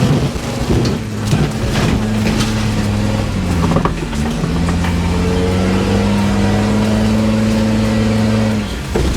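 Off-road 4x4's engine running at a steady pitch, with a few knocks and clatters in the first few seconds. The pitch dips briefly about four seconds in, then holds steady again.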